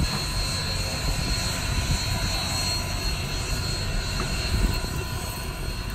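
Union Pacific 844, a 4-8-4 steam locomotive, moving slowly under its own power: a steady low rumble with hiss and a faint high whine over it.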